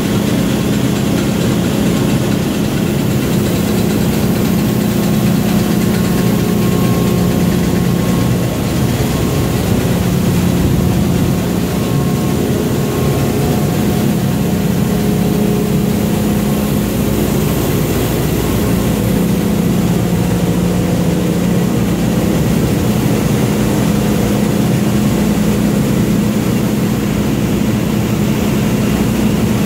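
Kidder 886 Centraflex central-impression flexographic printing press running at speed, printed plastic film travelling over its rollers: a loud, steady machine drone with a constant low hum.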